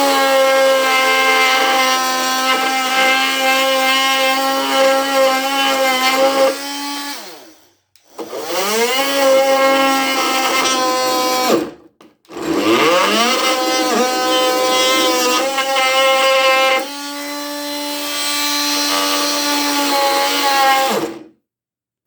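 Ryobi brushed cordless oscillating multi-tool cutting into a 2x6 with a wood blade: three runs of a high, steady whine, each rising in pitch as the tool spins up and stopping between runs, the last one turning quieter a few seconds before it stops.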